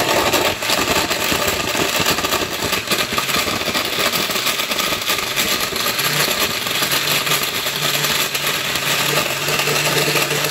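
Oster glass-jar blender running at high speed, churning large chunks of Snickers bar and peanuts in milk. It is a loud, steady whir, and a low, even motor hum comes through about halfway.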